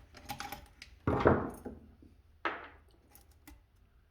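Handling noise from work under a sink as a garbage disposal's drain fitting and tools are moved: a few light clicks, then a sharp knock about a second in, the loudest, and a second shorter knock about halfway through.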